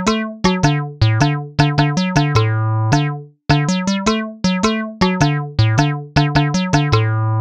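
Background music: a keyboard melody of short, quickly fading notes, the phrase repeating about every three and a half seconds and ending on a long held low note.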